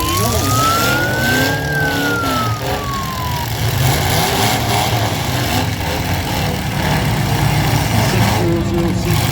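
Demolition derby cars' engines running and revving in a steady low rumble. In the first few seconds a siren wails once, rising and then falling away.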